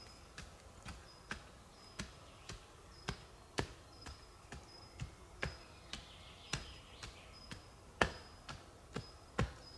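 Short-handled hand tool chopping into forest soil while digging a pit: sharp strikes about twice a second, unevenly loud, with the hardest blows about three and a half and eight seconds in. A faint high chirp repeats in the background.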